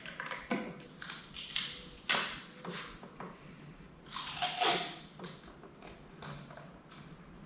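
Painter's tape being pulled from the roll, torn and pressed down, in irregular short rasping and crinkling bursts, the loudest about two seconds in and again around four and a half seconds.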